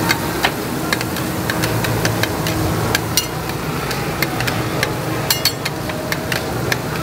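Metal spatulas tapping and scraping on a flat steel griddle as mini pancakes are flipped. The sharp, irregular clicks come a few each second over a steady background hum.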